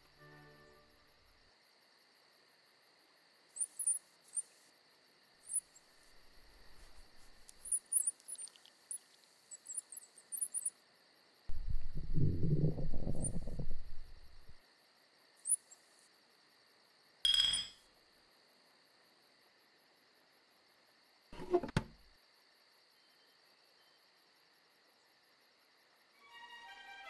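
Sparse sound-effect ambience of faint, scattered high chirps. About twelve seconds in comes a loud low rumble lasting about three seconds, followed later by a sharp ringing clink and then a duller thunk.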